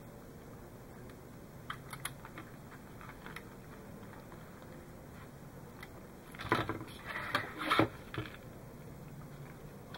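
Light clicks and rustles of hands handling thin hookup wires inside a plastic model hull, with a cluster of louder knocks and scrapes on the plastic between about six and eight seconds in.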